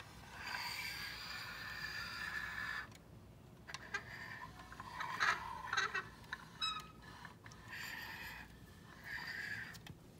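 Plastic dollhouse toys being handled: a scraping, rolling noise in three stretches, as of a toy vehicle pushed across the floor, with a run of sharp plastic clicks and knocks in the middle.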